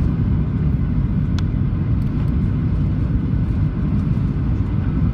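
Steady low rumble of a Boeing 737-700 heard inside the passenger cabin, with one brief click about a second and a half in.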